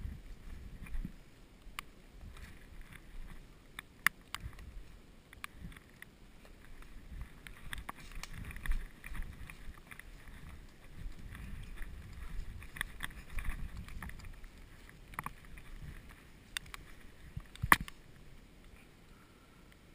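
Footsteps and the rustle of clothing and gear as a player moves through woodland undergrowth, with an uneven low rumble of movement against the microphone. Scattered sharp clicks and knocks run through it, the loudest near the end.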